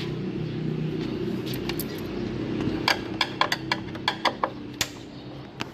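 A quick run of about ten sharp clicks and taps, from tools and plastic parts being worked loose while the air conditioner's fan motor cover is taken apart, over a steady low hum.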